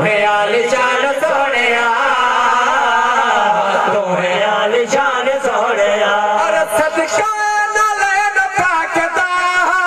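Two men singing a naat, a devotional Punjabi kalam, in a melismatic chanting style through microphones and a loudspeaker system. A steady low note is held under the melody for about the first half.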